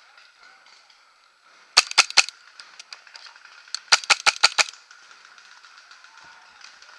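Magfed paintball marker firing: three quick shots about two seconds in, then a rapid string of five or six shots a couple of seconds later.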